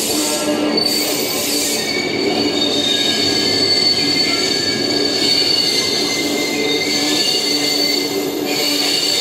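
Electric locomotives EF510-21 and EF67-105 rolling slowly through the yard, their steel wheels squealing on the rails with several steady high ringing tones over a rolling rumble.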